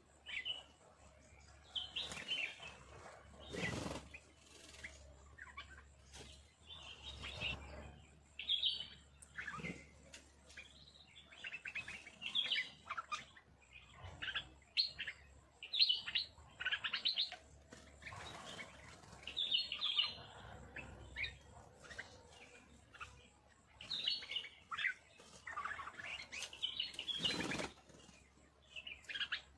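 Small birds chirping and twittering in many short, repeated calls, with a couple of louder wing flutters, one about four seconds in and one near the end.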